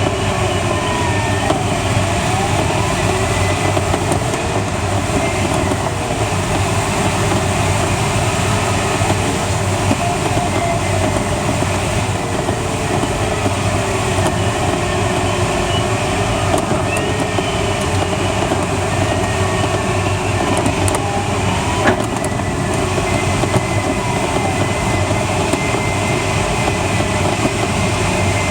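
Steady rush of air around the cockpit of a Schleicher ASK21 glider in flight, with faint tones sliding slowly up and down in pitch.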